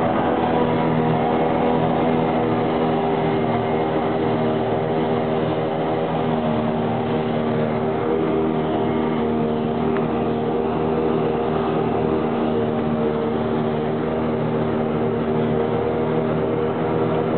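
Claas Jaguar 880 forage harvester and John Deere 6910 tractor working side by side, the harvester picking up and chopping grass into the trailer; their engines make a steady drone at an even pitch, heard from inside the tractor cab.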